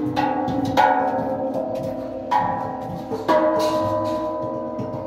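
Steel LPG gas cylinders struck as percussion, ringing like bells: about four strikes, each leaving long, overlapping metallic tones.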